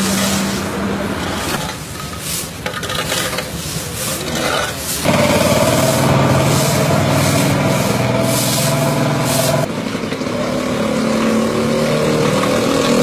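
Long-handled brooms scraping across a paved road in repeated rasping strokes. From about five seconds in, a vehicle's engine runs close by under the sweeping, louder until nearly ten seconds in.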